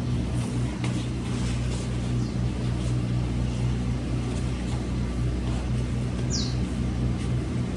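A steady low mechanical hum, with a single short high chirp falling in pitch about six seconds in.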